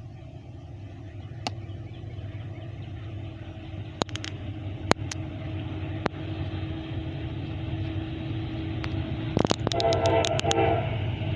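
Diesel freight locomotive approaching, its low rumble growing steadily louder, with one short horn blast about ten seconds in. A few sharp clicks sound along the way.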